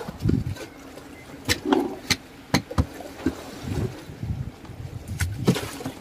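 Irregular sharp knocks and clicks with dull low thumps between them, over a faint steady hum: handling noise on the deck of a small fishing boat while the hook is baited and line let out.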